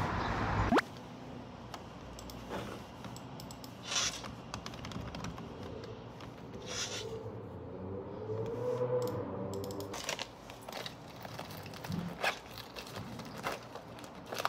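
Steady street traffic noise that cuts off abruptly under a second in, followed by a quiet small room with scattered small clicks, taps and scrapes of objects being handled.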